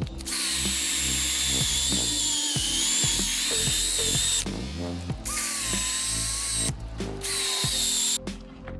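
Power drill spinning a stiff-bristle scrub brush against a WaveRunner's deck, grinding off leftover mat foam and adhesive. The drill's high whine runs in stretches and cuts out briefly a couple of times, then stops near the end.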